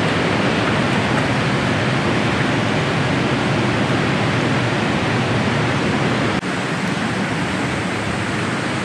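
Steady rushing outdoor noise, even from low to high pitch, with a brief drop about six and a half seconds in.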